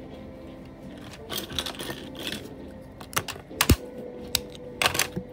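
Plastic Lego bricks being handled and pressed together on a baseplate. A patch of rattling comes between about one and two and a half seconds in, then a few separate sharp clicks; the strongest, a little before four seconds, has a thump.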